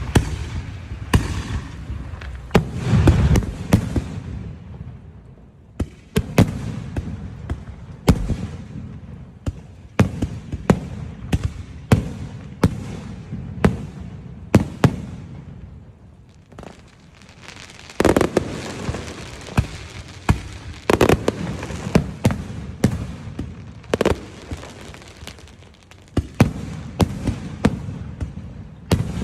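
Aerial fireworks display: a steady run of shell bursts, sharp bangs several a second with rumbling crackle between them, easing briefly about halfway through before picking up again.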